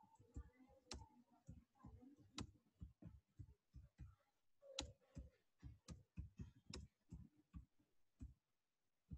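Faint computer keyboard typing: irregular key clicks, a few a second, with short pauses between words.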